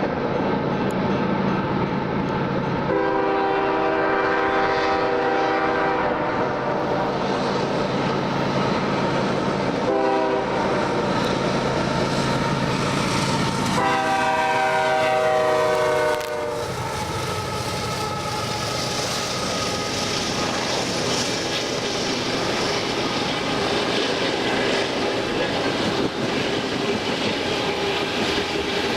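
Freight train locomotive horn sounding the crossing signal: a long blast about three seconds in, a short one around ten seconds, and a final long blast whose pitch drops as the locomotive passes. The diesel locomotives and freight cars then keep rolling by, with the wheels clicking over the rail joints.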